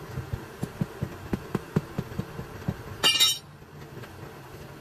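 Rapid metallic knocks, three to four a second, from a tool worked against a heavy truck tire and its steel rim while the tire is being taken off, over a low steady hum. About three seconds in there is a brief, loud, harsh clatter, the loudest sound; after it the knocking stops.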